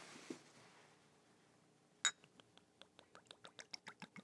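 A glass bottle clinks once about two seconds in, then coffee liqueur is poured from it into a cocktail shaker: a faint run of short glugging ticks that come faster and faster.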